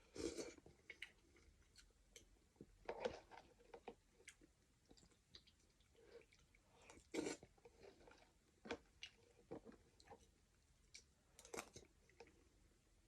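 Faint sounds of a person eating chicken noodle soup: chewing with scattered short sharp sounds, a few louder ones every few seconds.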